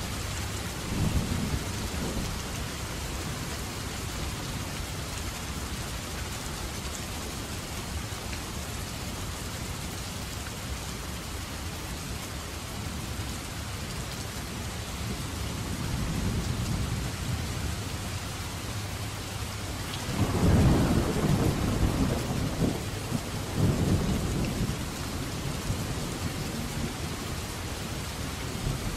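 Heavy, steady rain, a downpour, with thunder rumbling low. There is a short rumble about a second in and a slow swell midway. The loudest rumble comes about two-thirds of the way through, with a second one close after.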